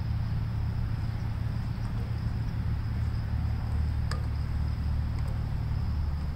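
Steady low background hum, with a faint click about four seconds in.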